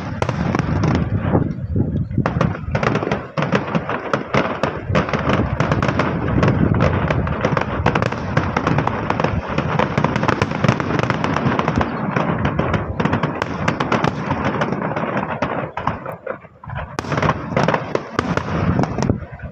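Fireworks going off in a dense, rapid, continuous crackle of bangs. It eases briefly near the end, then picks up again.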